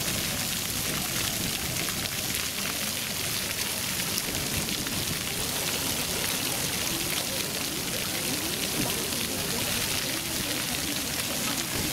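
Ground-level fountain jets spraying up from grates and splashing steadily onto wet paving stones.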